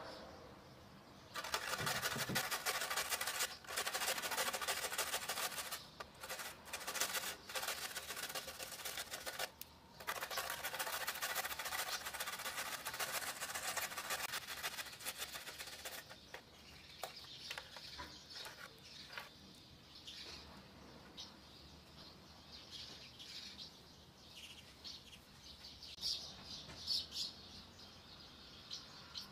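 Garlic cloves grated on a stainless steel box grater: a fast, loud rasping of many fine strokes in several spells with short pauses, then quieter scattered scrapes and taps over the second half.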